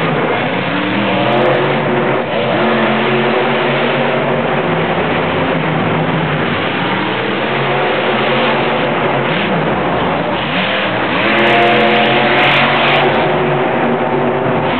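Monster truck engines revving hard, their pitch rising and falling again and again, getting louder about eleven seconds in.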